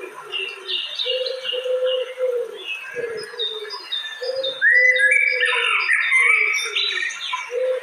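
Birds calling: a low note repeated over and over, with quick high chirps above it that grow busier about five seconds in.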